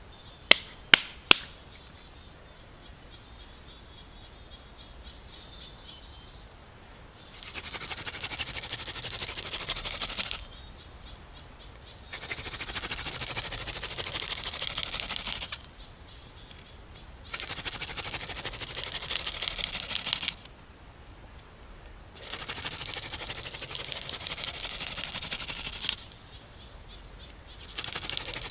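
Hand-drill friction fire: a wooden spindle spun back and forth between the palms, grinding in a wooden hearth board with a rapid rasping. It comes in spells of about three seconds with pauses of about two seconds, four spells and a fifth starting near the end. Three sharp clicks come about a second in, before the drilling.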